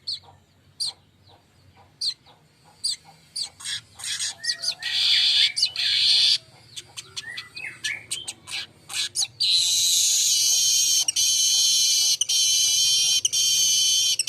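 Golden-headed weaver (manyar kepala emas) calling: a string of sharp chip notes, a burst of buzzy chatter, then a long harsh, wheezing buzz song in the last third, broken by a few short gaps. It is a lure call used to tutor or provoke cage birds.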